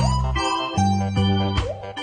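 Background music: an upbeat keyboard tune with an organ-like sound, with a steady bass pulse and regular note changes.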